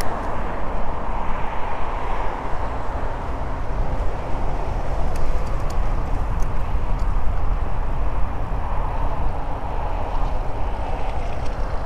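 Steady wind rumble on the camera microphone with tyre noise from an electric mountain bike riding along. A faint steady hum joins after about two and a half seconds.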